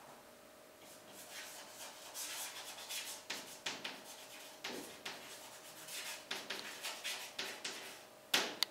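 Chalk scratching across a blackboard in short, irregular strokes as words are written out, with a sharper tap of the chalk on the board near the end.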